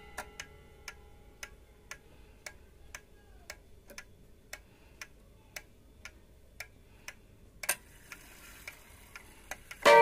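Seiko 30-day pendulum wall clock movement ticking evenly about twice a second, with the ring of an earlier chime note dying away over the first couple of seconds. A louder click comes near the end, and a new chime note starts ringing right at the end.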